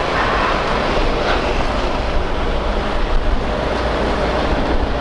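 Steady vehicle travel noise: a dense rush of wind and road noise over a low rumble, with no clear engine note standing out.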